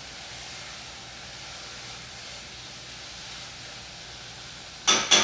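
Steady hiss of apples cooking in a pot on the stove, with two sharp clicks close together near the end.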